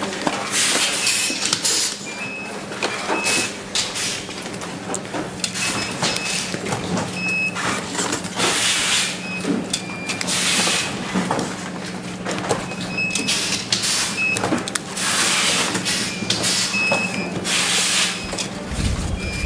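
Production-line machinery on a factory floor: a steady low hum with repeated short hissing bursts every one to two seconds and several brief high beeps.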